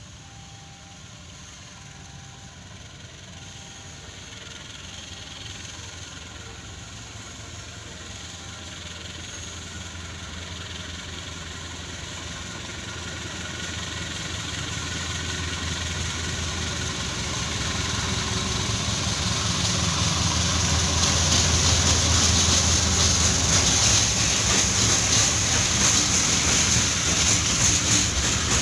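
Two diesel-electric locomotives double-heading a container freight train, approaching and passing close by. Their engine rumble grows steadily louder and peaks about three-quarters of the way through, then wheel and rail noise from the container wagons takes over near the end.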